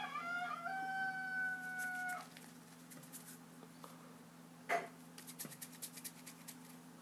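A rooster crowing: one long held call that stops about two seconds in, over a steady low hum. Later there is a sharp tap, then a quick run of light clicks.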